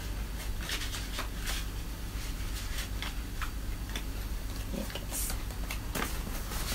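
Paper handling: a few short, crisp rustles and flicks as banknotes and a paper card are leafed through in the hands, irregularly spaced, over a steady low hum.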